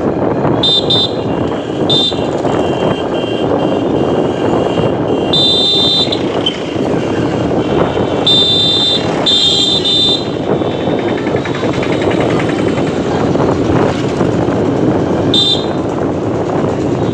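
Steady running noise of a moving train, with several short high-pitched squeals coming and going.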